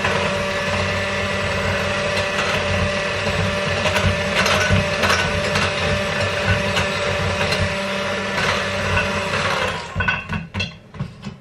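KitchenAid electric hand mixer running steadily, its beaters whirring through beaten eggs and sugar as melted white chocolate and butter are mixed in. It stops near the end, followed by a few light clicks.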